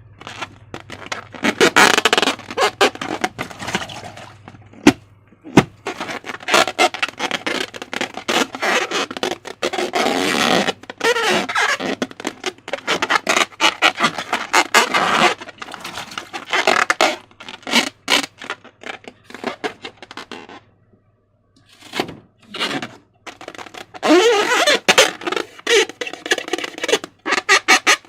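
Slime being worked by hand: dense wet clicking and squelching, with some squeaky, wavering rubbing sounds, stopping briefly about three quarters of the way through.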